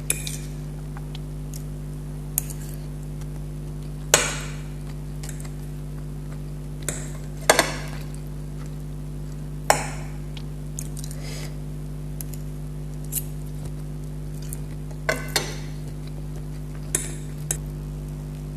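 A fork clinking and scraping against plates of food in irregular strikes, about a dozen, the loudest about four and seven and a half seconds in, over a steady low electrical hum.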